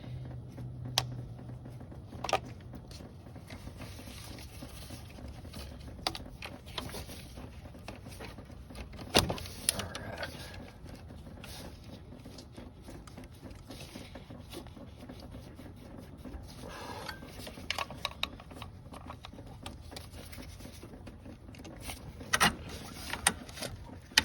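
Scattered light clicks and knocks of hand tools working on coolant hoses and plastic engine parts, over a low steady background.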